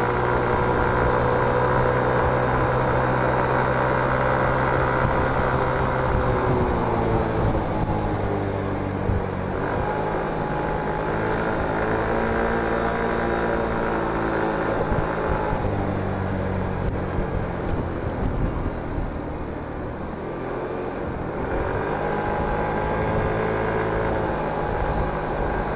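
Motor scooter's small engine running at speed, its pitch holding, dropping about seven seconds in, climbing again, dropping near twenty seconds and rising once more near the end as the throttle changes, over a steady rush of wind and road noise.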